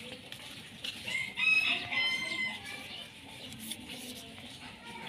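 A bird calling once over low background noise: a pitched call, in two parts and about a second long, around a second and a half in.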